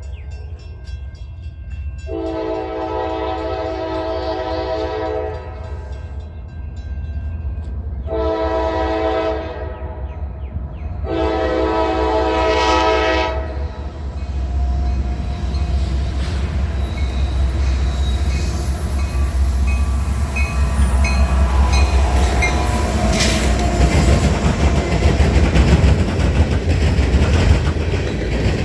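Diesel locomotive air horn sounding three blasts: long, short, long. A steady deep engine rumble runs under the blasts, and the train's rail and wheel clatter grows louder as it rolls past.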